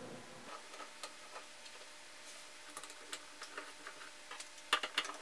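Faint small clicks and taps as a small Phillips screw is handled and started by hand into a metal instrument enclosure, with a quicker cluster of clicks near the end.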